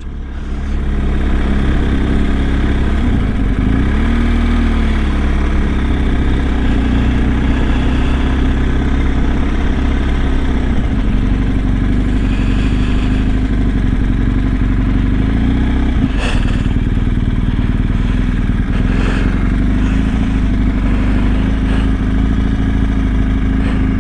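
BMW R1250 GS boxer-twin engine running steadily at low road speed, heard from the bike itself, with a brief dip and rise in engine pitch about four seconds in.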